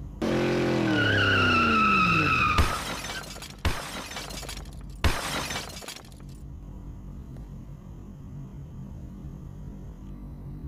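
A screech with a wavering high tone over a sound falling in pitch, then a crash with glass shattering about two and a half seconds in. Two smaller hits and a short burst of crashing noise follow over the next few seconds, then only a faint low hum.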